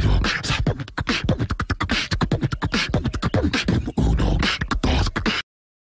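John Deere 110 tractor loader-backhoe on the move, a dense irregular rattling and knocking over a low rumble, cutting off abruptly near the end.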